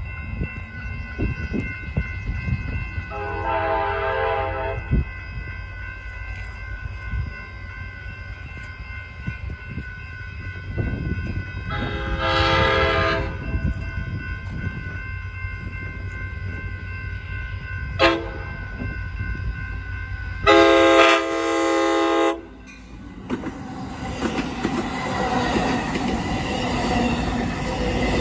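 Capitol Corridor passenger train sounding its horn in the grade-crossing pattern, long, long, short, long, as it approaches a crossing. Then the bilevel cars pass close by, the wheels rumbling on the rails and growing louder near the end.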